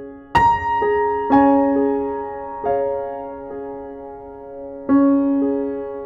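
Slow, gentle background piano music: single notes and soft chords struck a few at a time, each ringing out and fading.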